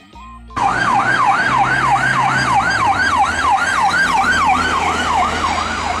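Ambulance siren in fast yelp mode, a rising-and-falling wail repeating about three times a second over a low vehicle rumble. It starts abruptly about half a second in.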